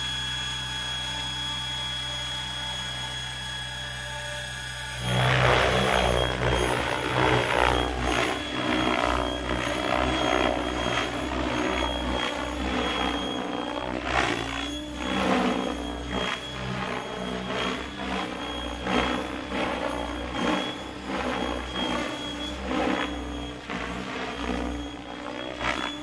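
Electric Mikado Logo 600 RC helicopter: a steady motor and rotor whine with the model on the ground, then about five seconds in a sudden jump to loud rotor-blade noise as it lifts off. Through the rest of the flight the blade noise rises and falls in pitch and loudness as it manoeuvres.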